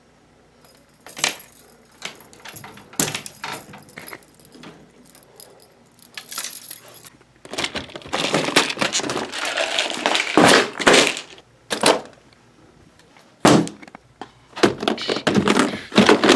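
Handling noise: scattered clicks, clinks and knocks, with a busier stretch of rustling and clattering about halfway through.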